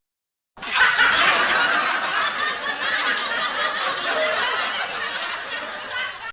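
Laughter sound effect: people laughing, starting about half a second in and cutting off abruptly near the end.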